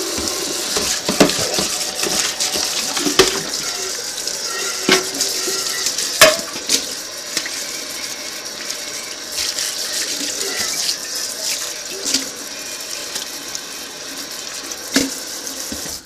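Kitchen faucet running into a stainless steel sink while a ceramic bowl is scrubbed with a sponge under the stream, with a few sharp knocks along the way. The water cuts off abruptly at the very end.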